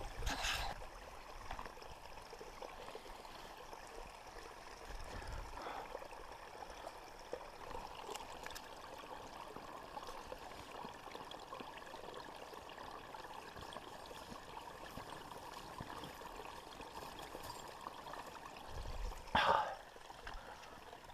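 Small mountain stream flowing steadily. A brief louder noise close by sounds right at the start and again about 19 seconds in.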